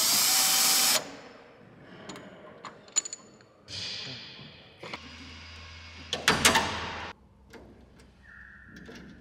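Cordless drill running in several short bursts, driving fasteners into an aluminium fitting, loudest in the first second. Sharp metallic clicks come between the bursts.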